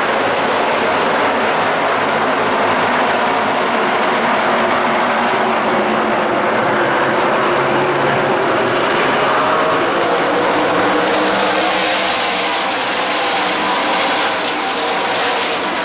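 A pack of NASCAR Craftsman trucks racing past, many V8 engines running hard at once, their overlapping tones rising and falling as the trucks go by. A brighter hiss comes in from about eleven seconds in.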